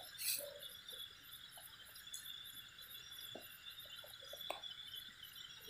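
Night insects, crickets, chirping steadily, with a very high trill pulsing in rapid, even beats. A brief sharp knock sounds just after the start and a smaller click about four and a half seconds in.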